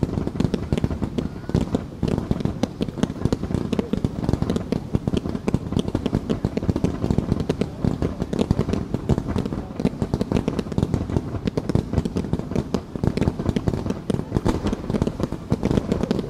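Fireworks fired in a rapid, unbroken barrage: many launches and bursts in quick succession, a dense stream of pops and bangs with no pause.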